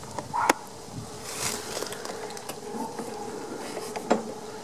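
A couple of sharp clicks and knocks from handling the mower's recoil starter and its pull rope, over a faint steady hum.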